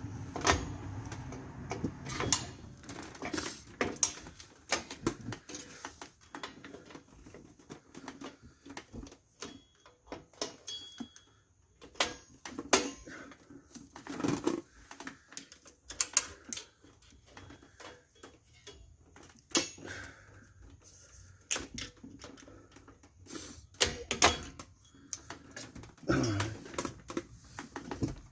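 Irregular metallic clicks, taps and clinks of hand tools working on the springs and clips of a 2001 Mitsubishi Montero Sport's rear drum brake, with several sharper knocks among them.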